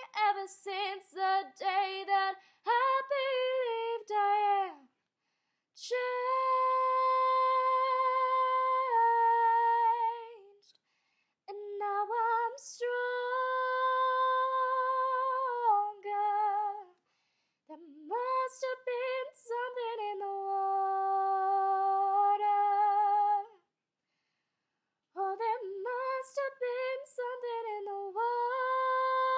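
A female voice singing unaccompanied in five phrases of long held notes and quick runs, with no clear words, and brief silences between the phrases.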